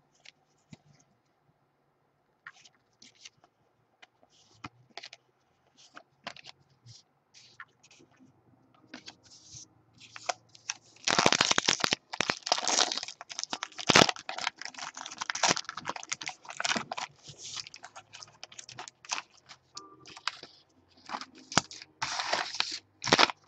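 Foil wrapper of a trading-card pack being torn open and crumpled: loud, dense crackling from about halfway through, with another burst near the end. Before that there are light scattered clicks of cards being handled.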